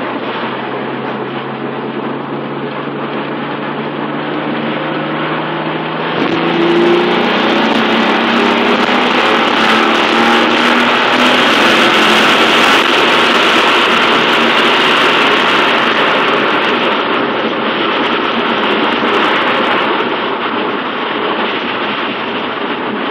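Twin-turbo V6 of a 1993 Mitsubishi 3000GT VR-4, heard from inside the cabin while driving under acceleration. The engine note climbs slowly for the first six seconds, then gets louder with a rushing hiss for about ten seconds before easing off near the end.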